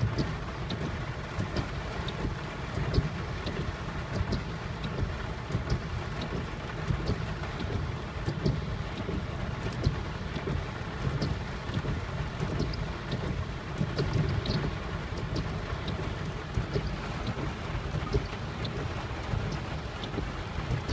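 Heavy monsoon rain falling hard on a car's roof and windshield, heard from inside the cabin: a dense, steady low rumble with scattered sharp ticks of single drops striking close by.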